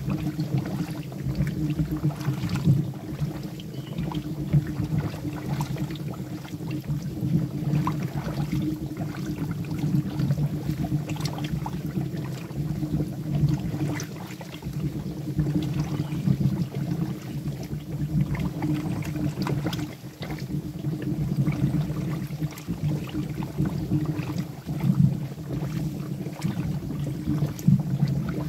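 Molten wax boiling in a dip tank around a wooden bee box, with many small pops and crackles as moisture steams out of the wood. A steady low rumble runs underneath.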